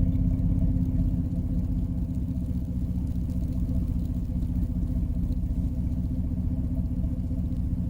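Motor vehicle engine running steadily nearby, a low even rumble with a fast pulse and no change in speed.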